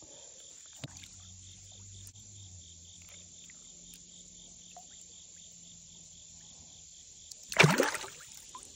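Insects chirping steadily in a high, even pulse of about four chirps a second. Near the end a short loud burst of noise breaks in.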